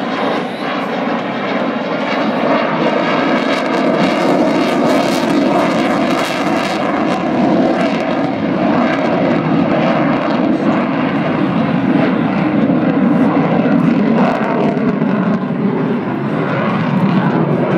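Aircraft engine noise from a plane in flight, loud and continuous, growing a little louder over the first few seconds and then holding steady.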